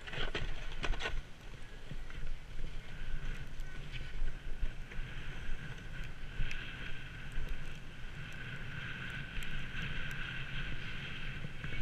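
Edges scraping and hissing over packed, cut-up snow during a fast descent, with wind rushing over the microphone. A few sharp knocks in the first second, and the scraping grows stronger about halfway through.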